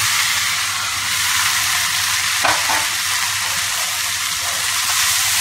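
Boiled chickpeas and masala sizzling steadily in hot ghee and ajwain tempering in a steel kadai as they are stirred.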